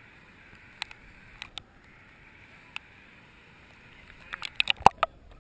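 Muffled underwater sound picked up by a snorkeler's submerged camera: a faint steady hiss with a few scattered sharp clicks, then a quick run of clicks and knocks about four seconds in, the loudest a knock just before the end.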